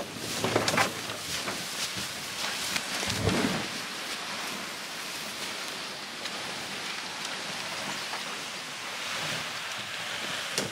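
Aluminium jon boat being dragged through tall dry reeds and grass: a steady rustling hiss of stems brushing along the hull, with a dull low bump about three seconds in.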